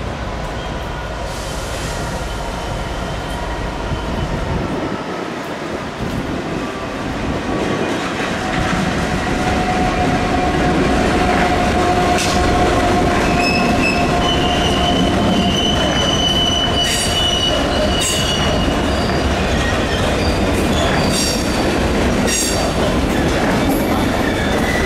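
Class 66 diesel-electric freight locomotive, with its two-stroke V12 engine, hauling a train of loaded coal hopper wagons past. The wagon wheels give a steady high-pitched squeal over the rumble, and in the second half they clack over rail joints again and again.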